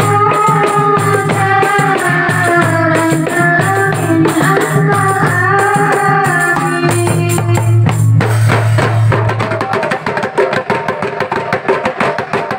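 Marawis ensemble playing: frame drums and tambourine beat under a held, gently bending melody with a steady low note. About eight seconds in, the melody and low note drop out, leaving only fast drumming.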